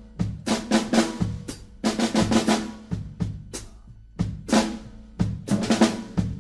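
Music with a prominent drum kit: snare and bass drum hits, several a second, over sustained pitched notes.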